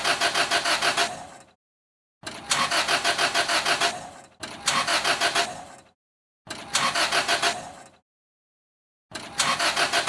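A car's starter cranking the engine in short tries of about a second and a half each, five in all, with an even pulsing beat as the engine turns over without catching: a car that won't start.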